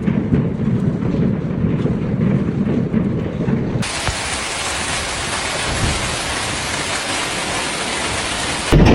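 Heavy hail and rain coming down in a dense, steady rush, low and rumbling at first, then changing abruptly about four seconds in to a brighter hiss, with another sudden change to a louder low rumble just before the end.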